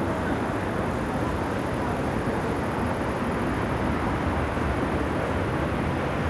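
Steady low rumble of distant city traffic, an even wash of sound with no single event standing out.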